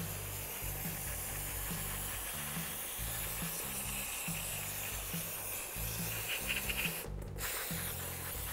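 Aerosol brake parts cleaner hissing steadily from its straw as it is sprayed onto the hub, over background music with a bass line. The hiss breaks off for a moment about seven seconds in.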